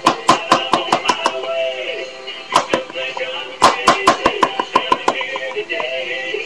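Quick, sharp knocks or taps, about four a second at first and then uneven, over background music.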